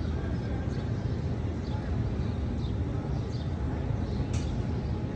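Open-air courtyard ambience: a steady low rumble with faint voices of a crowd and small birds chirping briefly now and then.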